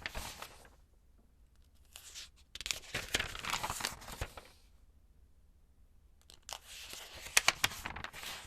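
Magazine pages being turned: a few separate papery rustling flips with short pauses between them, the last one with some sharp crackles.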